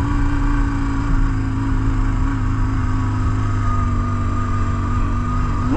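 BMW R1150GS Adventure's flat-twin boxer engine running at steady revs as the bike is ridden, easing off slightly in pitch near the end.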